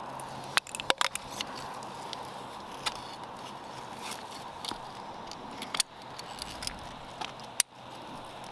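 Sharp clicks and taps of PVC pipe fittings being handled, a quick cluster about a second in and a few single clicks later, over a steady background hiss.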